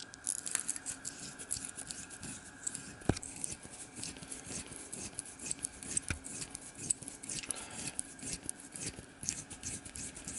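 Screwdriver twisting a brass safety-valve part against its seat in a vise-held fitting, lapping it with Brasso paste: an irregular gritty scratching and rubbing. A sharper click comes about three seconds in and another about six seconds in.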